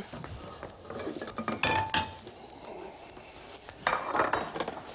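Kitchen utensils and dishes clattering and clinking at a counter, in scattered knocks, with one short ringing clink about two seconds in.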